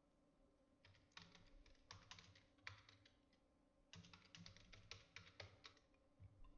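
Computer keyboard being typed on: faint key clicks in two quick runs with a short pause between, as a line of text is entered.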